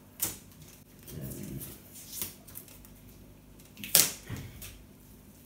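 Handling noises on a workbench: a few sharp clicks and knocks, the loudest about four seconds in, as insulation tape is taken off two drilled pieces of wood and the pieces are handled.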